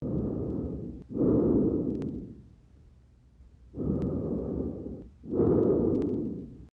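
Breath sounds heard on chest auscultation, from a simulated anterior-chest examination for pneumothorax. There are two full breaths, each a breathy hiss in two parts with a brief break between, the second part louder, and a pause between the breaths.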